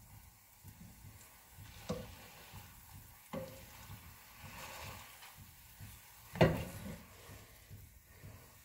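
Eggs sizzling faintly in a frying pan as a spatula stirs them, with a few sharp knocks of the spatula against the pan, the loudest about six and a half seconds in.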